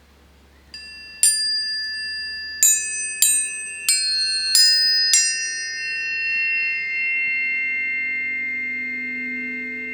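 Planetary tuning forks struck about seven times in quick succession, each strike a bright clang settling into a pure, steady ringing tone, the tones overlapping into a sustained chord. Deeper tones swell in during the last few seconds.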